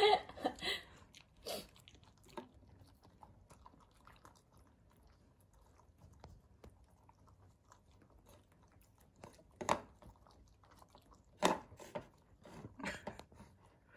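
A brindle Akita eating roasted sweet potato from an enamel bowl: soft chewing and licking with scattered small clicks, and a few sharper, louder clicks of teeth and muzzle against the bowl in the last few seconds.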